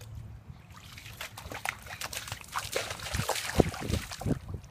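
Bare feet running and splashing through shallow rainwater on a flooded sidewalk: a string of quick splashes, faint at first and louder and closer together from about halfway in.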